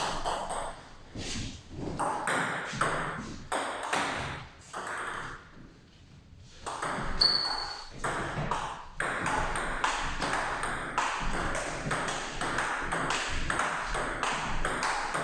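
Table tennis ball being struck by bats faced with Hurricane Neo and Tibhar MX-P rubbers and bouncing on the table: quick, sharp clicks several times a second. They stop briefly about six seconds in, then run on evenly in a rally to the end. A short high squeak comes just after the pause.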